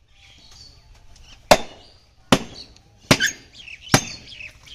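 A heavy cleaver chopping through beef ribs onto a wooden log block: four sharp chops, a little under a second apart.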